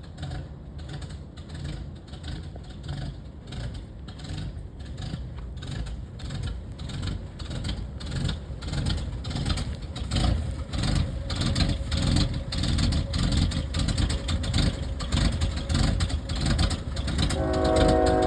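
Vehicle engine running with an exhaust leak, a low rhythmic pulsing rumble that grows louder. Near the end a steady pitched tone with several notes comes in over it.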